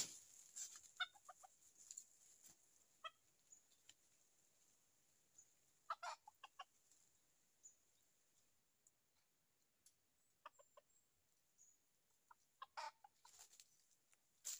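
Junglefowl rooster clucking: short calls in small clusters of a few notes, coming every few seconds with quiet in between.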